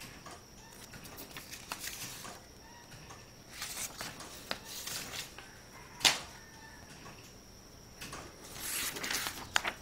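Sheets of printer paper being handled and swapped, rustling and sliding in several soft stretches, with a sharp paper snap about six seconds in.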